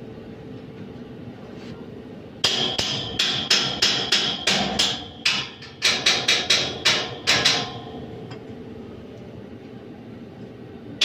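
A hammer striking a metal terrace grill in a quick run of about twenty ringing blows, roughly four a second. The blows start a couple of seconds in and stop about eight seconds in.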